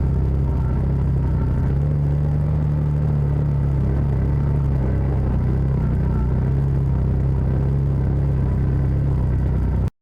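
Side-by-side UTV engine running steadily under way, a low, even drone with a rumble, which cuts off suddenly near the end.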